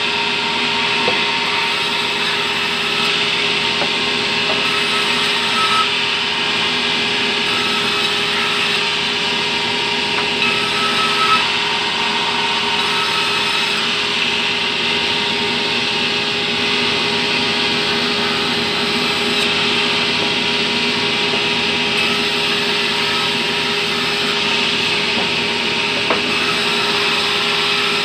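Band sawmill running and cutting lengthwise through a log of fibrous terap timber, a kind of wood that blunts the saw blade quickly. A continuous rasping noise of the blade in the wood, with a steady machine hum and a few small knocks.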